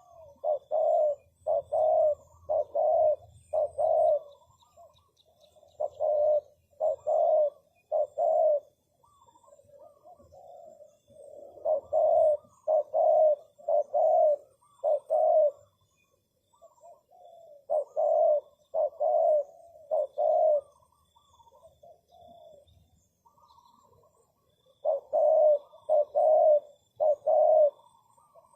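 Spotted dove cooing: five phrases of three to five deep, evenly spaced coos, each phrase a few seconds apart, with softer notes between the phrases.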